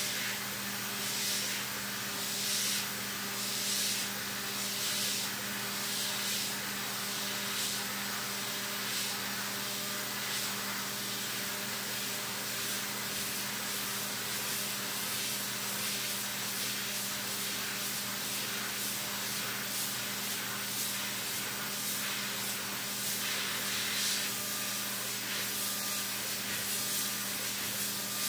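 Hurco VMX30Di CNC mill's direct-drive spindle turning a 3/8-inch end mill at 12,000 rpm on an aluminum finishing pass. It makes a steady hum under the hiss of flood coolant spraying over the cut, and the hiss swells now and then.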